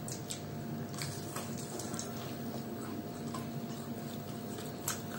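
People chewing fried cauliflower pakoras: scattered small wet mouth clicks and smacks over a steady background hum.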